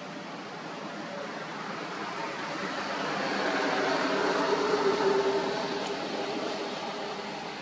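A motor vehicle's engine passing by: a steady engine hum that swells to its loudest about two-thirds of the way through, then fades away.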